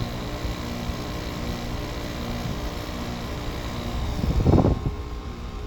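GE 5050 BTU window air conditioner running steadily, its Samsung R-22 rotary compressor humming under the fan's airflow while it cools well. A brief louder rush of noise comes about four seconds in.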